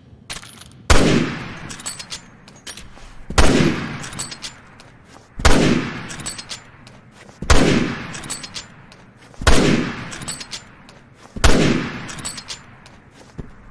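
SIG-Sauer SSG 3000 bolt-action sniper rifle fired six times, about two seconds apart, each shot followed by a long echoing tail. Faint mechanical clicks sound between the shots as the bolt is worked.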